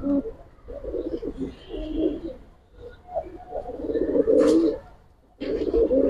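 Domestic pigeons cooing: several low, warbling coos with short pauses between them.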